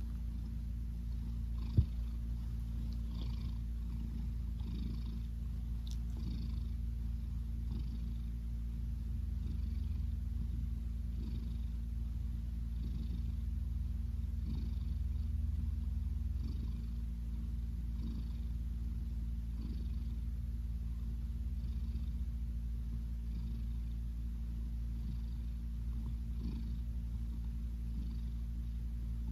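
Brown tabby cat purring steadily, the purr pulsing about every second and a half. A single sharp click about two seconds in.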